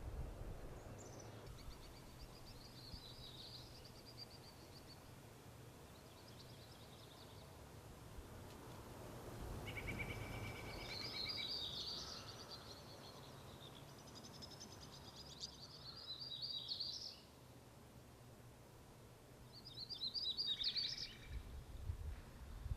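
Songbirds singing in several short, twittering phrases, with a brief steady whistled note about ten seconds in, over a faint steady low rumble of outdoor ambience.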